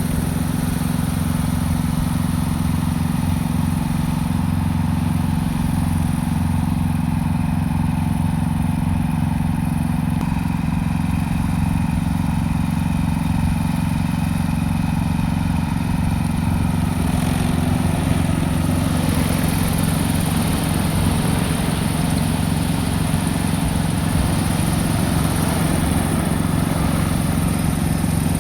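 Agricultural spraying drone's motors and propellers giving a steady, loud droning hum; about two-thirds of the way through, a brighter hiss joins it.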